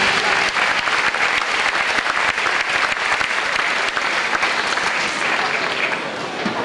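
Large audience applauding, a dense patter of many hands clapping that thins out near the end.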